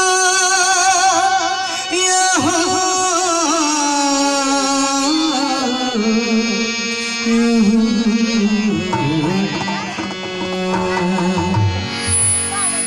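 A male singer holding long, wordless alap notes with vibrato, the melody winding slowly downward in pitch, over sustained harmonium chords.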